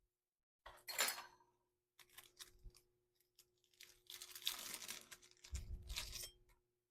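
Quiet handling noises: a few clicks, then a rustling, crinkling stretch about halfway through and another shortly after, as the multi-tool's blades and pads are picked up from their packaging.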